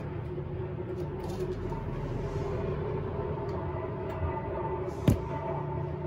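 Beko WTK104121A washing machine running steadily at the end of its final spin, a steady motor hum with several held tones. One sharp knock about five seconds in.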